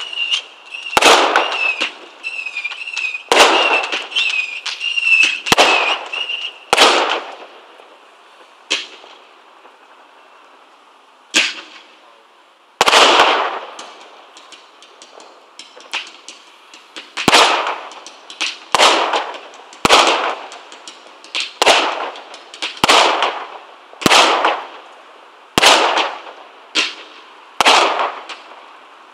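Fireworks display: aerial shells bursting with sharp bangs every second or two, each bang trailing off. There is a lull of a few seconds near the middle. A high, wavering whistle-like tone runs under the first six seconds.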